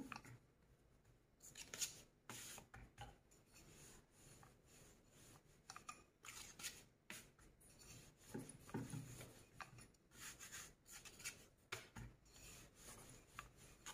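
Faint, irregular rubbing strokes of a wooden rolling pin rolling flour-dusted kuboos dough flat on a round metal board.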